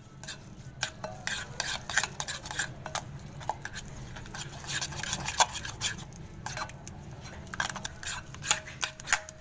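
A spoon stirring a thick yogurt-and-spice marinade in a glass bowl: quick, irregular clinks and scrapes against the glass. Some clinks near the end ring briefly.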